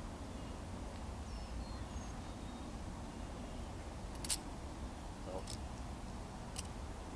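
Balisong butterfly knife's handles clacking as it is tossed and caught: three sharp clicks about a second apart in the second half, over a steady low rumble.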